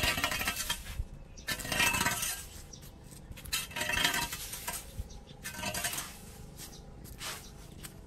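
Metal rake dragged through dry leaves over concrete paving, the tines scraping and clinking on the pavement. About five strokes roughly two seconds apart, the last ones weaker.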